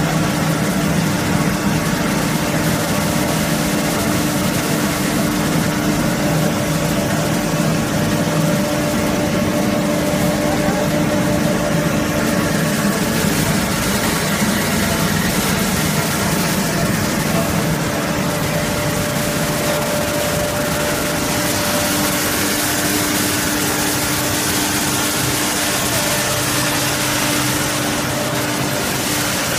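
Straw pellet production line machinery running steadily: an even, loud machine hum with a constant tone through it.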